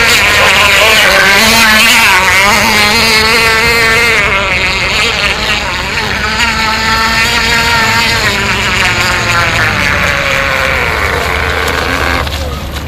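K&B 3.5 two-stroke glow engine of a radio-controlled F1 tunnel-hull model boat running flat out on a carburettor-tuning run, a high-pitched buzzing whine that wavers up and down in pitch as the boat moves across the water. Towards the end the pitch falls and the sound drops off as the boat slows.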